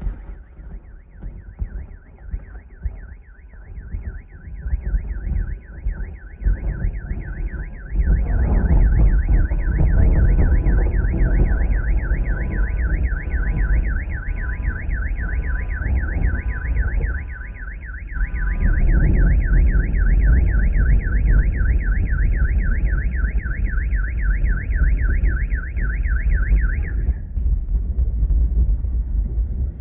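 A car alarm sounding in a rapid, steady warble, set off by a lightning strike close by; it stops near the end. Under it, wind rumbles heavily on the microphone, loudest from about eight seconds in.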